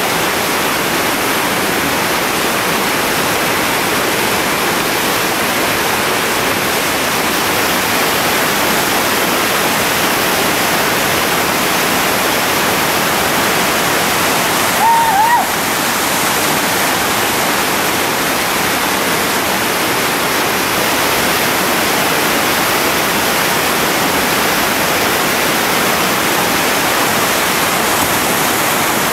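Steady, loud rush of a big whitewater rapid on the Chattooga River, churning water pouring over and around rocks. A short high-pitched call cuts through briefly about halfway through.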